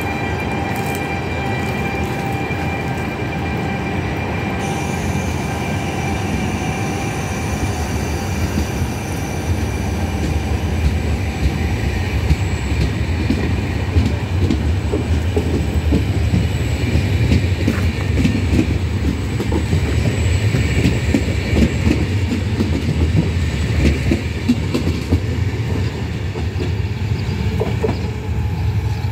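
A Vivalto double-deck passenger train, hauled by an E464 electric locomotive, passing at close range with a steady rumble of wheels on rail. A thin steady whine sounds in the first several seconds, and the rhythmic clatter of wheels over the rail joints grows stronger from about ten seconds in.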